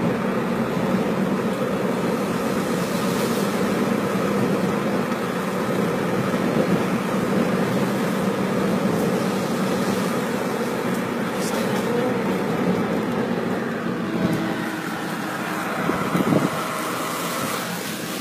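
Steady road and engine noise of a car being driven, with a brief louder sound about sixteen seconds in.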